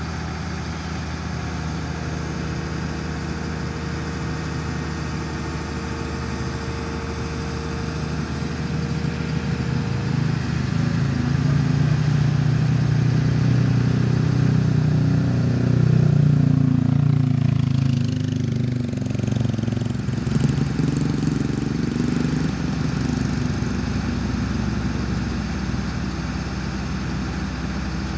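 Excavator's diesel engine running steadily, then revving up about ten seconds in as it takes the load of a hanging precast concrete culvert segment, and easing back down after about twenty seconds.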